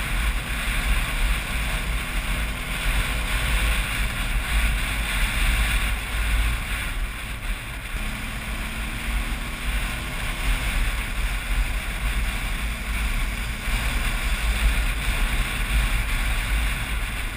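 Wind buffeting the microphone of a camera mounted on a moving motorcycle: a steady rushing noise with a heavy low rumble, the bike's engine and road noise underneath.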